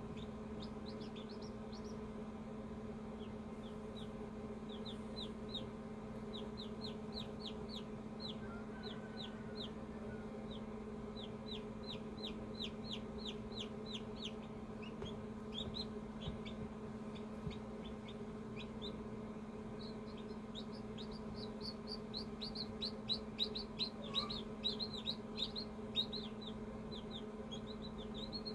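Chick peeping in an incubator: runs of short, high, quickly falling peeps that grow louder and come faster over the last several seconds, over a steady low hum.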